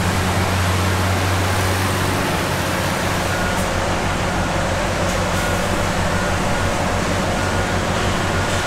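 Rotochopper B66 wood grinder running steadily while grinding wood into chips: a loud, continuous machine drone with a deep hum underneath.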